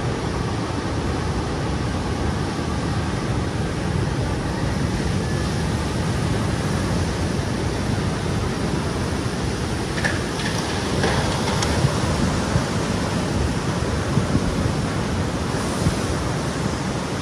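Tsunami surge water rushing and churning across flooded land, a steady loud rush of water noise, with a few sharp clicks or knocks in the second half.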